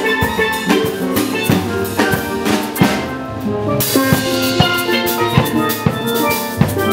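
A steel band playing: several steel pans ringing out pitched notes of a tune together over a drum kit keeping the beat. The cymbal hiss stops for a moment about three seconds in.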